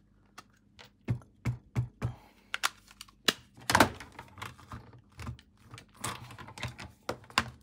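Irregular plastic taps and clicks from a hinged stamp positioning tool as a clear stamp in its lid is inked with black ink, then the lid is closed and pressed down on the card; a louder knock comes a little under four seconds in.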